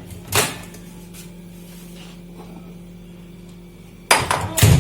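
Microwave oven door opening with a single sharp latch click about half a second in. Near the end comes a quick run of clattering knocks as the bowl of cashews is lifted out of the oven.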